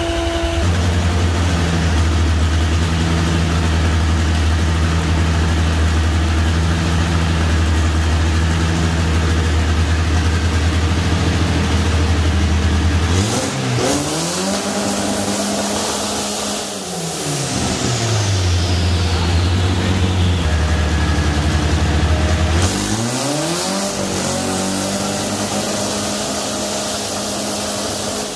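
The turbocharged 2.0-litre four-cylinder engine of a 1987 VW Jetta methanol drag car runs at a steady speed for about 13 seconds. It is then revved up, held, and let fall twice. A high whistle falls away as the revs drop each time.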